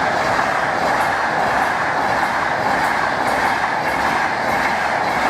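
A Virgin Trains West Coast Class 390 Pendolino electric express passing through the level crossing: a loud, steady rush of wheels on rail, with faint regular clicks about twice a second as the wheels cross rail joints.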